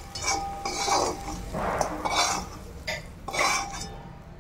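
Metal spatula scraping and clinking against a metal kadhai (Indian wok) in several short strokes as fried coriander is scraped out of it.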